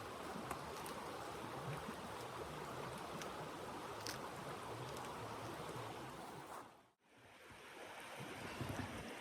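Faint steady rushing noise with a few faint clicks. It dips to silence about seven seconds in and fades back up.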